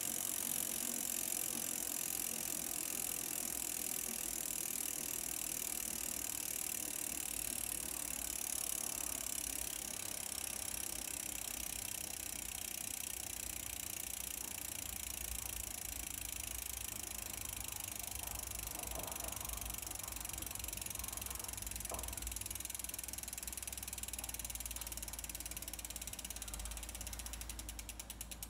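Shimano Deore XT FH-M8010 rear freehub clicking as the wheel spins freely: a fast, even buzz of pawl clicks. Near the end it slows into separate, evenly spaced clicks as the wheel loses speed.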